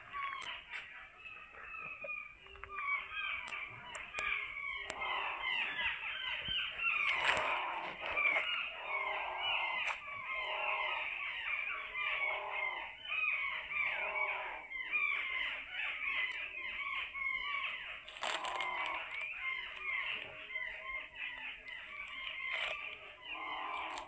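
A dense chatter of many birds calling at once: short, overlapping chirps and clucks that keep up without a break.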